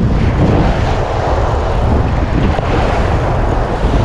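Strong wind buffeting the microphone over the steady wash of surf breaking on the beach.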